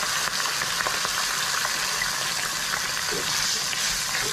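Uncooked rice and sautéed onions sizzling in oil in a wok, a steady hiss, with a few light clicks as a wooden spatula stirs it.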